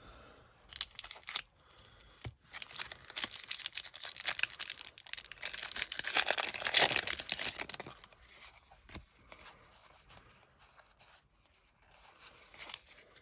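A Pokémon TCG booster pack's foil wrapper being torn open and crinkled. There is a short rustle about a second in, then several seconds of continuous tearing and crackling, loudest near the middle. Faint rustling follows near the end.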